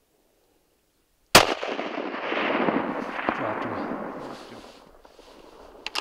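A single rifle shot about a second and a half in, followed by a long rolling echo that swells and then fades over about three seconds. A couple of sharp clicks come near the end.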